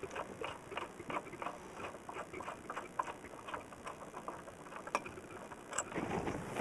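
Socket wrench clicking in quick, uneven strokes as bolts are backed off the back of an outboard motor.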